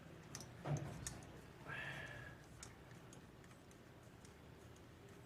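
Faint small clicks and taps of hands fitting and fastening a part onto a 3D printer during a fan repair, with a low thump just under a second in.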